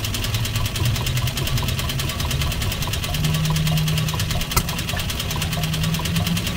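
Cessna 310's left engine, a six-cylinder Continental, being cranked over by its starter in a steady run of rapid strokes, its pitch rising a little, without starting. A sharp click sounds about four and a half seconds in. The engine won't start because fuel is spraying from the flow divider vent, which points to a torn flow divider diaphragm.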